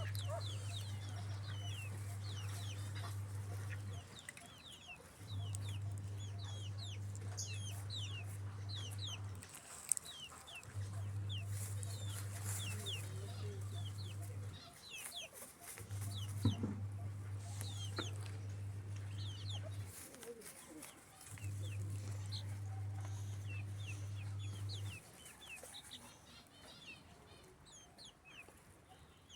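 Chickens calling, with many short high peeps that drop in pitch, scattered throughout. Under them a low steady hum comes and goes five times, each stretch about four seconds long with a second's pause between, and it is the loudest sound.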